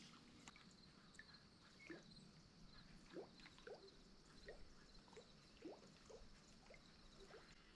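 Near silence: faint lakeside ambience with a series of short rising chirps, about one or two a second, over a faint steady high hiss.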